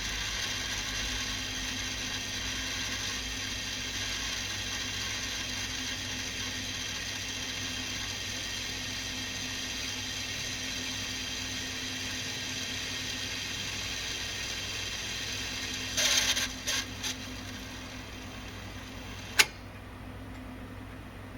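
Victor BR-6400 VHS deck fast-winding a tape, a steady mechanical whir with a grinding undertone that the owner traces to the tape guide roller. About sixteen seconds in come a few short louder clunks and the noise drops away, then a single sharp click a few seconds later.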